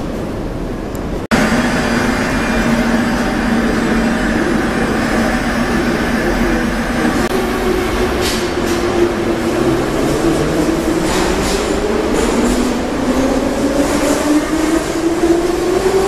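Moscow metro train pulling out of a station platform: rumbling wheels and running gear, with the traction-motor whine rising in pitch as the train picks up speed in the second half. There is an abrupt cut about a second in.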